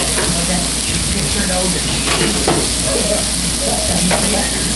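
Beef burger patties sizzling steadily on a Blackstone flat-top griddle, with a few sharp crackles of spitting fat.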